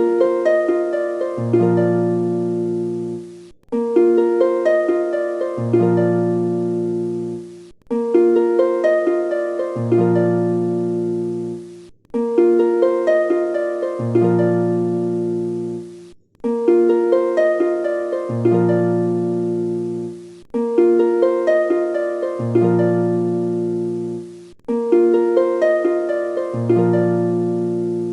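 Background music: a short phrase of plucked harp-like notes over a bass line, looping about every four seconds with a brief break between repeats.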